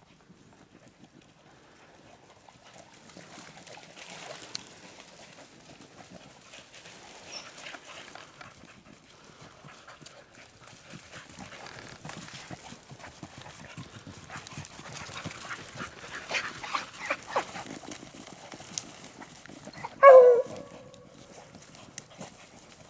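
Beagles' footsteps rustling and crackling through dry fallen leaves, a little louder in the second half. Near the end one beagle gives a single short, loud bark.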